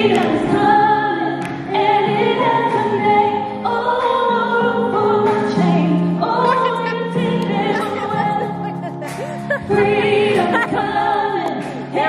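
Female vocalists singing a gospel worship song through a church sound system, with long held notes and melodic runs.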